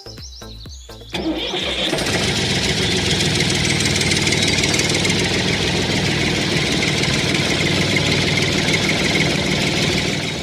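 An engine starts abruptly about a second in and runs steadily, loud over the background music, cutting off at the end.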